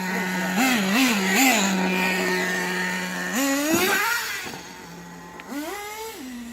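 Nitro RC car engine idling steadily, blipped three times in quick succession, then revved up hard about three and a half seconds in and again near the end, dropping back to idle each time.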